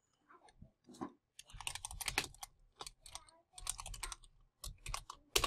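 Typing on a computer keyboard: several short runs of keystrokes with brief pauses between them, and one louder keystroke near the end.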